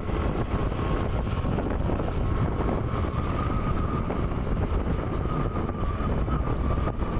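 Wind buffeting the microphone over the steady running drone of a vehicle on the move, with a thin steady whine above it.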